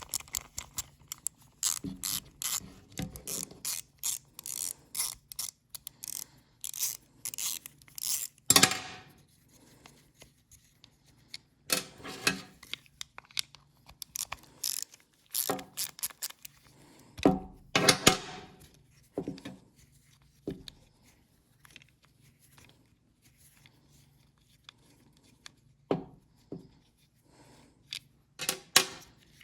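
Hand tools and small metal parts of a lawnmower carburetor clicking and scraping as the carburetor is taken apart for cleaning. The sounds come in irregular bursts, with a lull late on.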